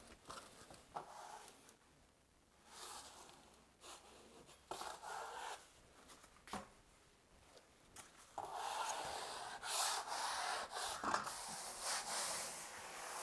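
Rubbing strokes over RSS sheet membrane bedded in thinset on a foam shower pan, pressing it flat and working out air bubbles: a flat smoothing tool at first, then gloved hands. Separate strokes in the first half, then steadier, louder rubbing from about eight seconds in.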